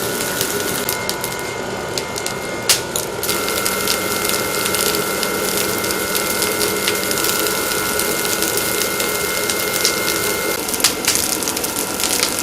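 A workshop machine running with a steady whine and a dense, rapid clatter of fine clicks. The whine grows stronger for most of the middle part and eases near the end.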